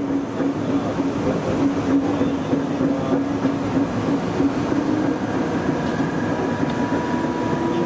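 Nagoya Municipal Subway 3000 series electric train running along the track: a steady rumble of wheels on rail with a low steady hum. A fainter, higher whine joins about five seconds in.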